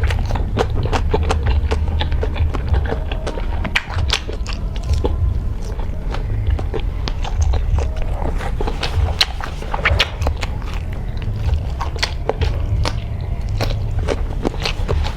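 A person biting and chewing fried sausage: a continual run of short, sharp mouth clicks and chewing sounds over a steady low hum.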